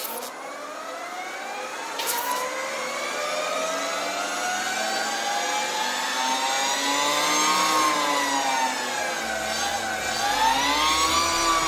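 Harley-Davidson LiveWire electric motorcycle's motor whining as the rear wheel spins. The pitch climbs slowly, eases off about two-thirds of the way through, then rises again near the end. A single click comes about two seconds in.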